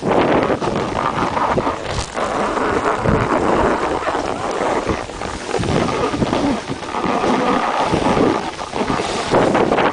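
Loud wind noise buffeting the microphone of a camera carried by a snowboarder riding downhill, surging and dropping, mixed with the board scraping over the snow.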